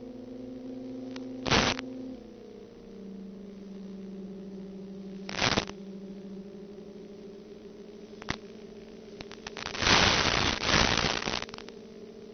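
Steady hum of a DJI Phantom FC40 quadcopter's motors and propellers in flight, dropping slightly in pitch about two seconds in. Broken by short bursts of crackling noise, three brief ones and a longer, loudest one near the end.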